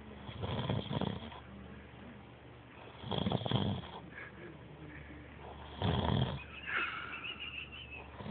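A person snoring loudly: three long, rasping snores about two and a half to three seconds apart, each on a breath.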